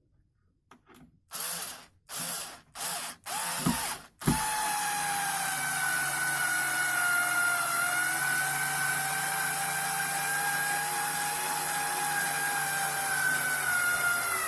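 Electric drill: four short trigger bursts, then the motor running steadily with a whine that wavers slightly in pitch.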